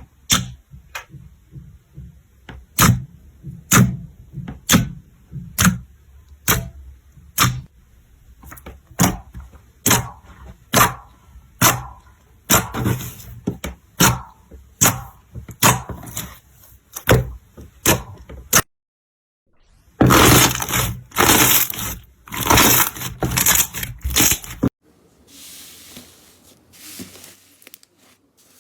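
Slime being pressed and worked by hand, giving sharp crackling clicks roughly once a second that come faster as it goes on. After a brief break come several louder crunching, crinkling bursts, then softer rustling near the end.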